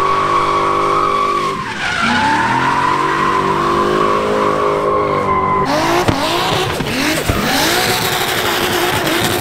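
Drift cars sliding sideways: an engine held at high revs over tyre squeal and skid noise, its pitch dipping briefly and climbing back as the throttle is worked. About two-thirds through the sound changes to engines revving up and down in quick surges.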